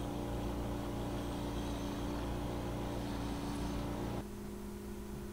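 Bench grinder motor running steadily while a brass doorknob is pressed against its spinning wire wheel, the wheel scrubbing the metal. About four seconds in the knob comes off the wheel and the scrubbing stops, leaving the motor hum.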